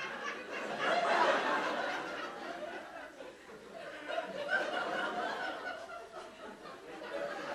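Theatre audience laughing, swelling about a second in and dying down by about three seconds, with scattered chuckles after.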